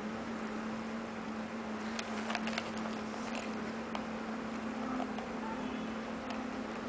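Steady low electrical hum with an even hiss. About two seconds in comes a cluster of light clicks and rustles, then a few single clicks later: hands handling the item and its packaging during unboxing.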